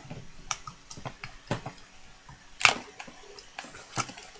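Scattered sharp clicks and snaps of plastic toy packaging being handled while figures are freed from their twist ties, the loudest snap about two and a half seconds in.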